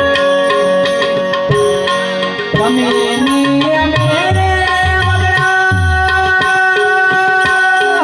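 Instrumental interlude of a Gujarati devotional song: harmonium playing long held notes over tabla, with the deep bass drum sounding in a steady rhythm.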